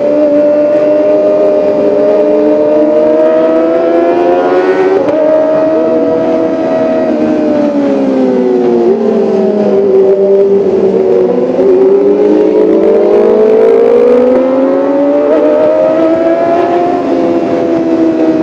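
Kawasaki ZX-25R's 250 cc inline-four engine running at high revs, loud and continuous. Its pitch sags over several seconds in the middle, with a few abrupt small steps, then climbs steadily again.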